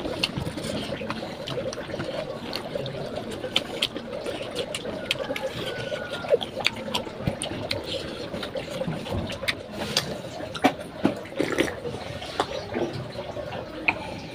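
Close-miked eating sounds: wet chewing and sharp mouth and lip clicks while rice and fish are eaten by hand, over a steady background rush.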